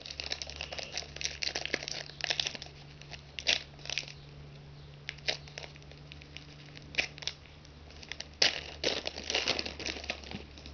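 Foil wrapper of a trading-card pack crinkling and tearing as hands open it. The crinkling comes in two spells, at the start and again near the end, with a few sharp crackles between.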